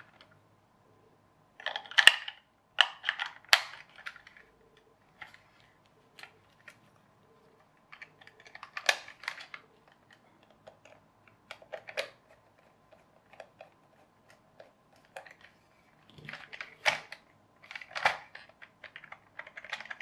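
Irregular clicks and short scrapes of hard plastic being handled: AAA batteries being pressed into a toy bulldozer's battery compartment, the plastic cover clipped on and a small screwdriver working on its screw. The clicks come in small clusters with pauses between.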